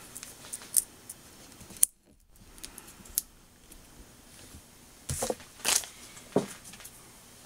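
Plastic SMD component cut tape being handled and pressed down onto double-sided tape on a wooden board: a few light clicks and crinkles, with a louder cluster of rustling and tapping about five to six and a half seconds in.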